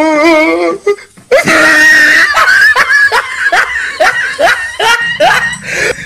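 A person laughing hard and high-pitched: a wavering drawn-out cry at the start, then after a short breath a long run of shrieking 'ha' sounds, about two or three a second.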